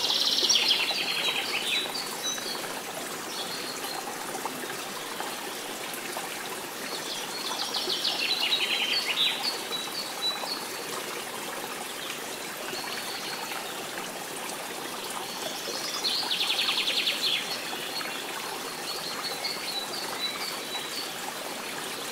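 Running water with birds singing over it. A fast trilling call comes about every eight seconds, with short high chirps in between.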